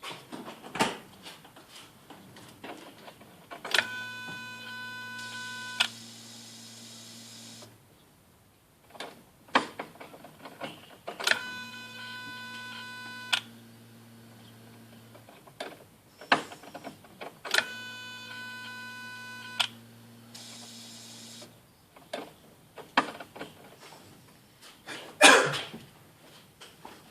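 Škoda Octavia 1.6 electronic throttle body, switched on with the engine not running: a click, then a steady electric whine over a low hum for a few seconds as the throttle valve motor runs its test. This happens three times, with scattered clicks between. A louder rustling knock comes near the end.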